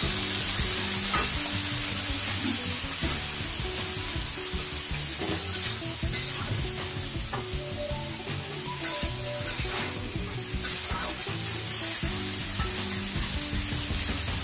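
Vegetables frying in hot oil in a pan, with a steady sizzle and the scrape and clink of a spatula stirring them, over soft background music.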